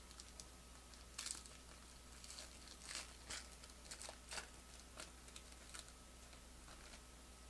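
Foil trading-card pack being torn open and its wrapper crinkled: faint, scattered crackles and rustles, the loudest about a second in and again around three to four and a half seconds in.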